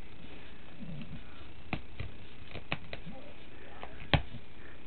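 A dog handling a plush toy on a rug: a scattering of short, sharp clicks and taps over a faint steady hiss, with the loudest click about four seconds in.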